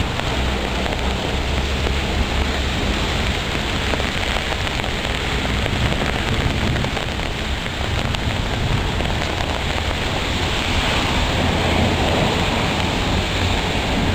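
Heavy rain pouring steadily in a thunderstorm, a dense continuous hiss, with a low rumble strongest over the first few seconds.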